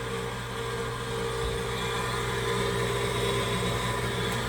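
Gas furnace running in its preheat stage: the draft inducer motor hums steadily with the burners lit.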